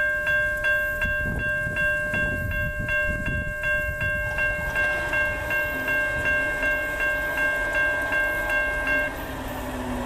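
Railroad grade-crossing bell ringing with repeated metallic strikes, about three a second, that stop shortly before the end. From about the middle a faint low horn note from the distant approaching train joins in, over a low rumble.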